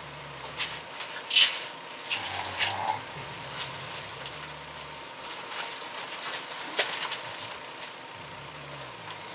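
Crinkling and rustling of packaging and small items being handled, with scattered clicks; the loudest crinkle is about one and a half seconds in. A faint steady hum runs underneath.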